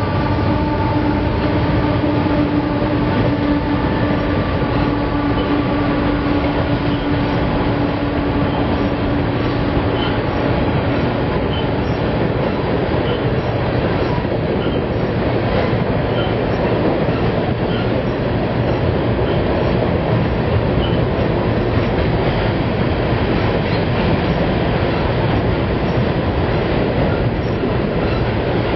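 A diesel freight train's horn chord dies away over the first several seconds, its lowest note lasting to about ten seconds in. The steady noise of the freight train rolling past fills the rest.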